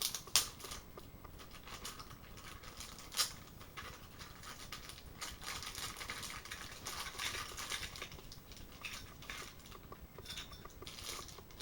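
Small plastic clicks and handling noises as toy tires are fitted onto a toy jeep's wheels, with two sharper snaps about half a second in and about three seconds in.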